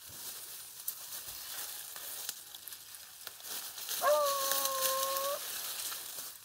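Grass and brush rustling with a steady hiss as someone pushes through the vegetation. About four seconds in comes one long held call lasting about a second and a half, falling slightly in pitch.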